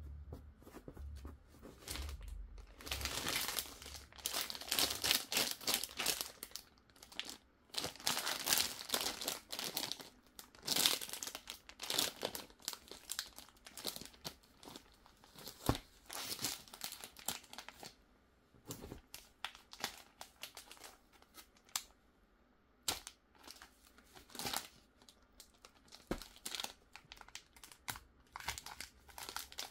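Clear plastic wrapping on a card portfolio crinkling as it is handled, in dense bursts through the first half, then sparser crinkles and light clicks.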